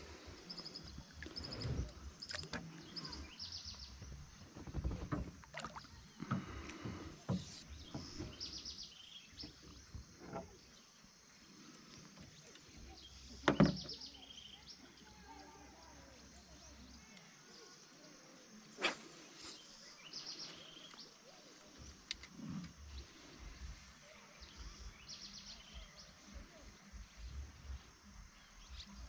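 Scattered knocks and handling sounds on a small plastic boat while fishing, over a faint outdoor background; a sharp knock stands out about thirteen and a half seconds in, and another comes near nineteen seconds.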